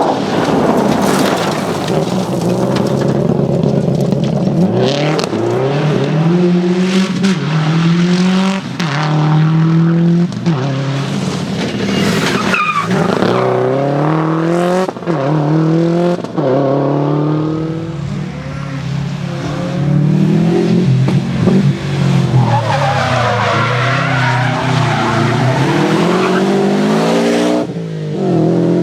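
Subaru Impreza rally car's turbocharged flat-four engine driven hard, revving up through several quick upshifts, then easing off and accelerating again near the end, with tyre skidding noise.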